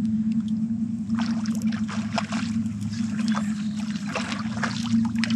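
Boat's outboard motor running steadily at trolling speed, a low even hum. Irregular water splashing over it from about a second in.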